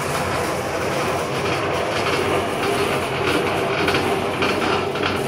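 Homemade electric cement mixer, a steel drum on a welded steel frame driven by an electric motor, running steadily with the drum turning empty.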